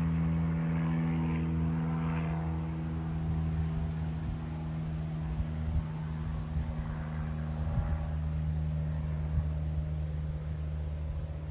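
A steady low hum, its higher overtones fading out over the first few seconds, with faint high ticks at a regular pace.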